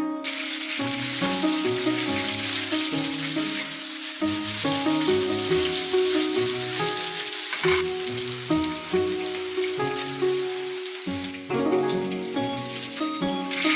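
Food sizzling as it fries in hot oil, a dense crackling hiss that starts abruptly. Background music with sustained melodic notes plays underneath.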